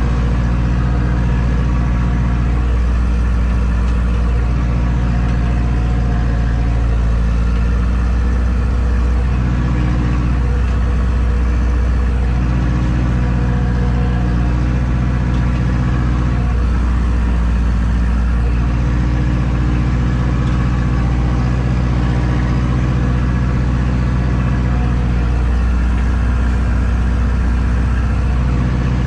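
Zetor tractor's diesel engine running steadily, heard from inside the cab, with a deep, even drone and only slight changes in pitch.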